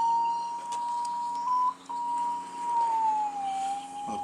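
Steady electronic tone from a drain-camera locator's receiver as it picks up the camera head's signal, the audible cue for where the head lies in the pipe. The tone breaks briefly about one and a half seconds in and dips slightly in pitch near the end.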